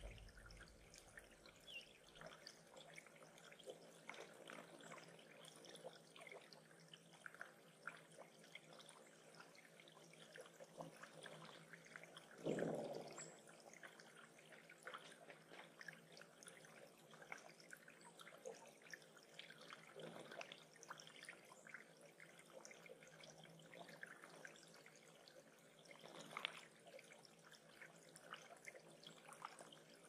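Faint trickling and dripping water from a bird pond, many small drips over a steady wash, with one soft thump about twelve seconds in.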